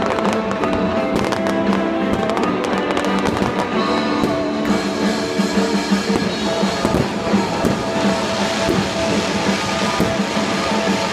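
Fireworks going off in quick succession, with dense rapid cracks and pops that thin out about halfway through. Music with a steady pitch plays throughout the show.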